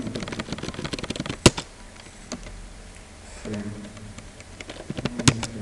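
Computer mouse clicking: a quick run of clicks at first, one sharp click about a second and a half in, and a double click near the end as folders are opened.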